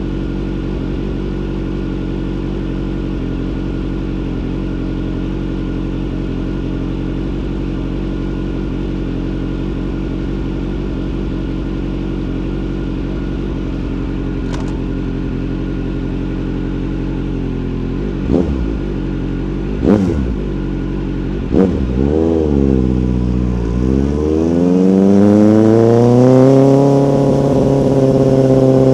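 Motorcycle engine idling steadily, then three sharp throttle blips about two-thirds of the way through. It then pulls away, its pitch climbing and levelling off near the end.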